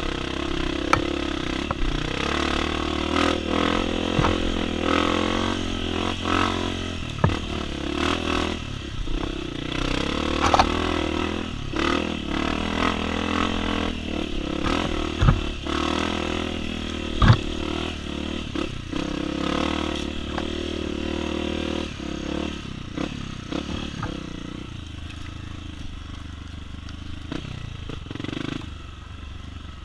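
Honda CRF250F four-stroke single-cylinder dirt bike engine running steadily on a trail, with frequent sharp knocks and rattles over it, the loudest about 15 and 17 seconds in. The engine sound eases off somewhat for the last few seconds.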